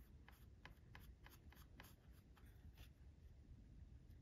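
Faint, soft ticks of a small paintbrush dabbing paint onto a board, about three a second at first and then sparser.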